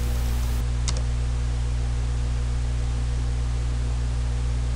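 Steady low electrical hum with an even hiss, broken by one short click about a second in.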